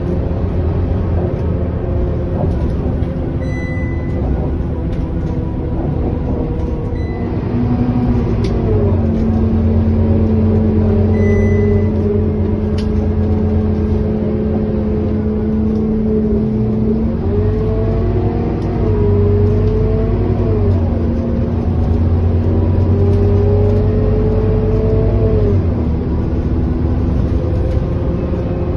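Scania K230UB city bus heard from inside the passenger cabin while under way: a steady diesel drivetrain hum with a pitched whine that sets in about eight seconds in, wavers in pitch in the middle and fades near the end.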